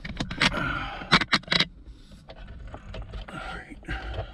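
Dash cam power cable being pulled and worked into a car's headliner trim: a burst of scraping and rustling with sharp clicks for about the first second and a half, then softer scattered rubs and clicks.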